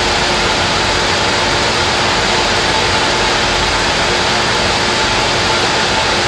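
Miniature Stirling engine running fast, its propeller spinning: a steady, even whir with faint steady tones in it.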